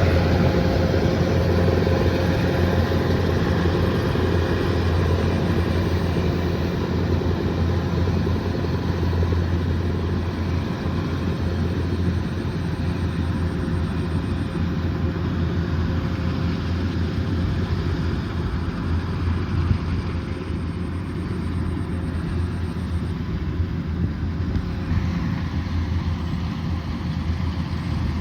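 Kubota DC108X combine harvester running steadily, its diesel engine and machinery giving a constant low drone that eases a little softer over the last few seconds.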